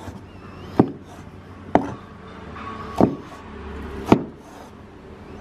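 A large kitchen knife cutting boiled liver into strips on a wooden chopping board: four sharp knocks of the blade against the board, about a second apart.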